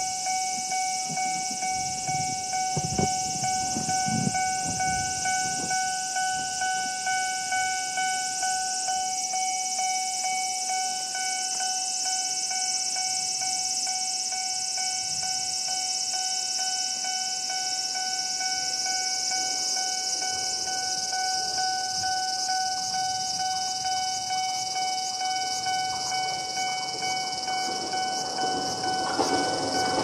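Japanese level-crossing electronic warning bell ringing steadily in its repeating pattern, with its lower-pitched tone dropping out. Near the end, the noise of an approaching train builds up under it.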